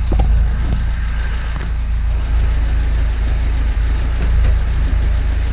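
A 1978 MGB's 1.8-litre four-cylinder engine running steadily, heard as a deep, even rumble.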